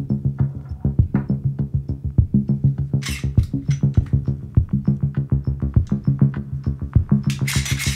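Electronic background music: a rapid, even ticking drum-machine beat over a low, sustained synth bass, with a short hiss swell about three seconds in and another near the end.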